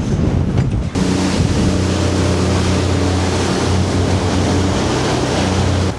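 Wind buffeting the microphone, then from about a second in a boat motor running steadily under a loud rush of wind and water.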